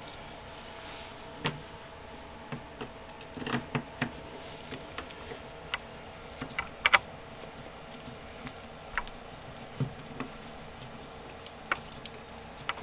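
Scattered sharp clicks and taps of a screwdriver and the hard plastic and metal parts of an airsoft rifle's gearbox being handled and screwed back together, over a faint steady hum. The loudest is a quick double click about seven seconds in.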